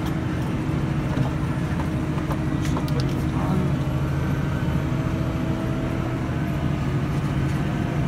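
Tractor and large square baler running steadily while baling straw, heard from inside the tractor cab as a constant low drone.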